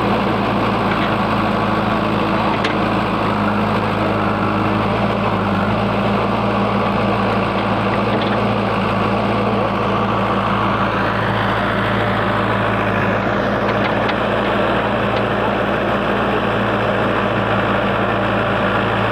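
JCB 3DX backhoe loader's diesel engine running steadily, its sound growing a little fuller about eleven seconds in.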